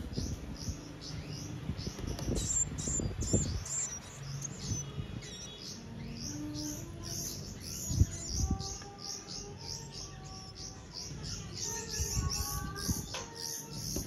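Nestling songbirds giving rapid high-pitched begging chirps, about three a second, with a few low thumps early on. Soft music with a slow melody comes in during the second half.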